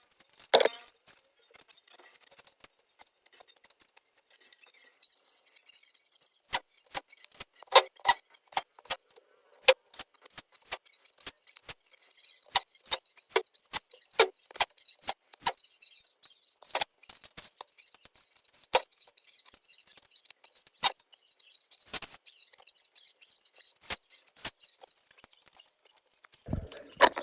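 Dozens of sharp, irregular clicks and clinks from small hard objects being handled, with a dull thump at the very end.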